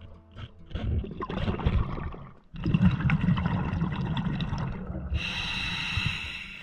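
Scuba diver breathing underwater through a regulator: bursts of rushing, gurgling exhaled bubbles, then a bright hissing inhale near the end.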